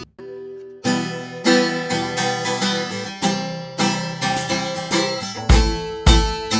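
Background music led by strummed guitar, with a short break about a second in before the music picks up again and a heavy beat comes back near the end.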